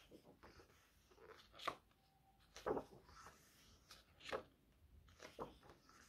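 Pages of a thick glossy photobook being turned by hand: about four short, soft rustles and flicks of paper.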